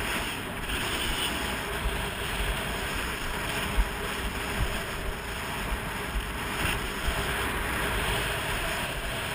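Rushing wind on the microphone of a skier's body-worn camera, mixed with the hiss of skis sliding on snow during a downhill run. There are a few short low bumps.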